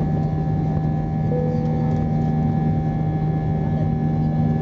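Airbus A320-214's CFM56 jet engines running steadily: a constant whine of several fixed tones over a low rumble, holding level throughout.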